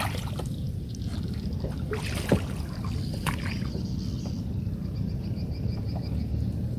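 Small wooden boat moving on flooded-field water, with a steady low rumble and a few short knocks, the sharpest about two seconds in. A faint, quick run of high ticks comes in the latter part.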